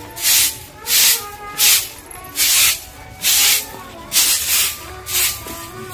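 Short grass broom (jhadu) sweeping a cement floor: a steady run of swishes, about eight strokes at a little over one per second.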